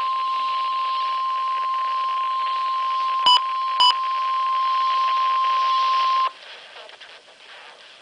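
NOAA Weather Radio warning alarm tone, a steady 1050 Hz tone over hiss from a Midland WR-100 weather radio's speaker, signalling a warning about to be read; it cuts off sharply about six seconds in, leaving faint static. About three seconds in, two short beeps half a second apart sound from the radio's buttons being pressed.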